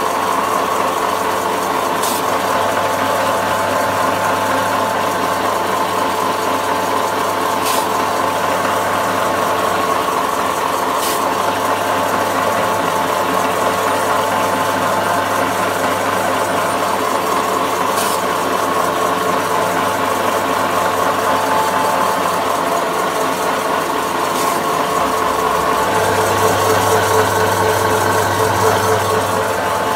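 SS70 electric meat slicer running steadily with a constant motor hum and whine while slicing sheets of paper into strips. A few sharp ticks come now and then, and the hum grows louder about 26 seconds in.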